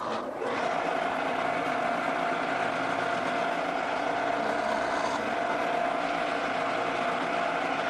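Drill press running steadily with a 1/4-inch brad point bit, a constant motor tone, while drilling a row of shelf-pin holes to a set depth in a wooden cabinet side.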